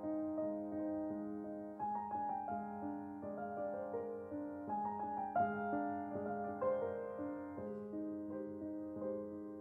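Background piano music: a melody of separate notes over held chords.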